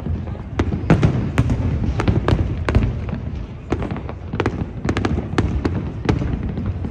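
Aerial fireworks shells bursting in quick, irregular succession, several sharp bangs a second over a continuous low rumble.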